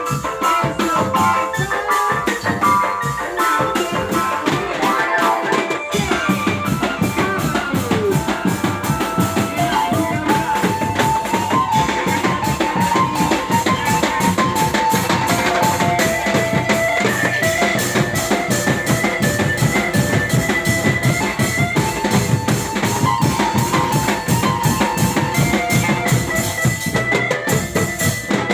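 Dramben (drum band) music: a fast, steady drum beat with bass drum and snare under a melody line.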